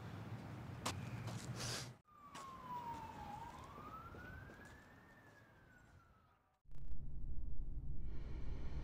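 A siren wails: its pitch dips, then rises and slowly falls as it fades away and cuts off. Before it comes low background noise with a few clicks, and after it, suddenly, a louder steady low rumble.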